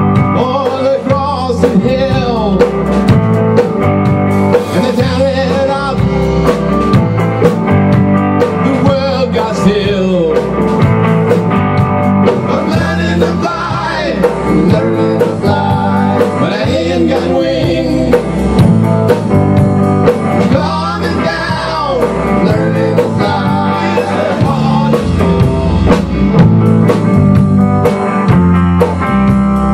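A rock band playing live: electric guitar, electric bass and drum kit, with a man singing lead vocals over a steady beat.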